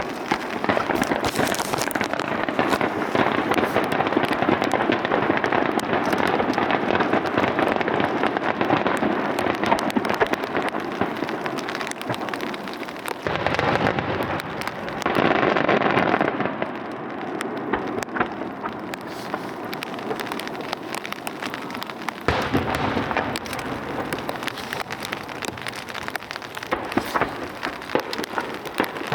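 A starmine fireworks barrage firing rapidly: continuous dense crackling and popping of bursting shells, with a louder swell about halfway through.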